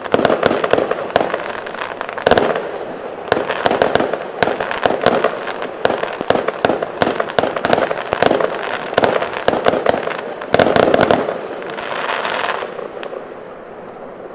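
Fireworks going off in rapid succession: dense sharp bangs and crackling with barely a pause, a brief hiss about twelve seconds in, then thinning out and fading near the end.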